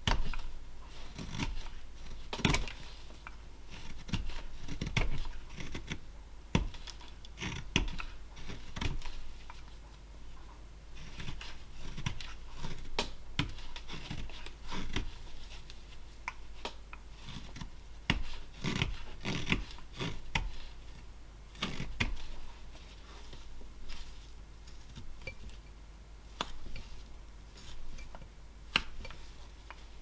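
Flexcut roughing knife paring lime wood (basswood) by hand: many short slicing cuts at an irregular pace, some in quick runs, with gaps between them.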